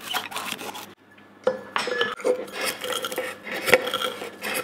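A kitchen knife chopping lemongrass on a plastic cutting board, a few quick strokes. From about a second and a half in, the lemongrass is bashed in a stainless steel cocktail shaker tin: repeated knocking and grinding, with the tin ringing.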